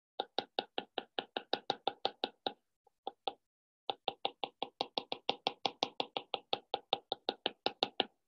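Pen stylus tapping rapidly on a drawing tablet, one tap for each dot of a scatter plot, at about five or six taps a second. The tapping breaks off for about a second near the middle, then runs on.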